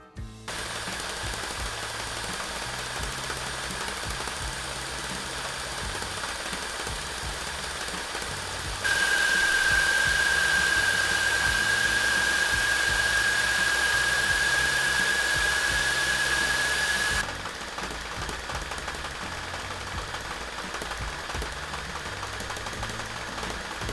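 Cordless stick vacuum cleaner running with a steady motor whine. About nine seconds in it gets louder, with a strong high whine that rises slightly in pitch, then drops back to the quieter level about eight seconds later.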